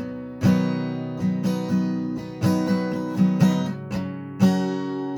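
Acoustic guitar in drop tuning, capoed high, strummed in a slow chord pattern: a strong strum about every two seconds with lighter strokes ringing in between.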